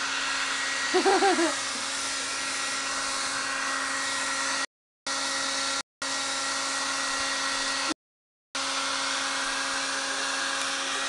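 Handheld hair dryer blowing steadily, a rushing air noise with a steady motor hum. The sound cuts out completely three times, around five, six and eight seconds in. A brief voice sound comes about a second in.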